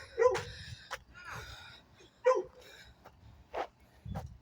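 A dog barking in short single barks, the two loudest about two seconds apart, with a sharp click about a second in.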